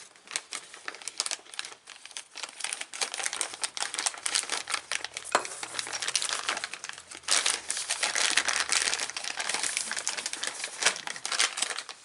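Plastic packaging crinkling and rustling as parts are handled and unwrapped, a dense run of small crackles that gets louder and busier about halfway through.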